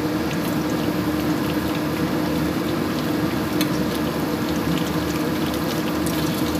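Anchovy fritters sizzling in hot oil in a frying pan: a steady sizzle with many small pops and crackles throughout.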